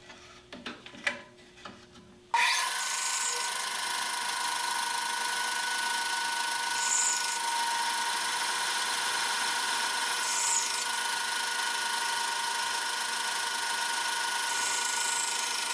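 A few light handling knocks, then about two seconds in a band saw comes in suddenly and runs steadily with a whine and hiss as it slices small trapezoid blocks from a hardwood strip, sped up to four times normal speed.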